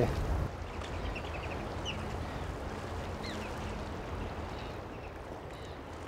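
Steady wash of sea and wind on the coast, with a few faint, short, high bird calls between about one and three and a half seconds in.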